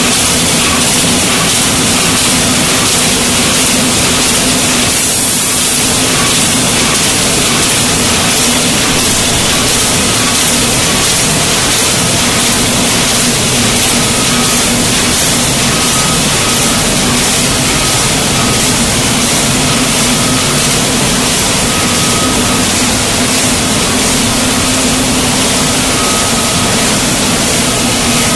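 Full-auto 5-litre tinplate paint can body production line running: a steady, loud machine noise with a low hum. From about a third of the way in, a faint short tone repeats roughly once a second.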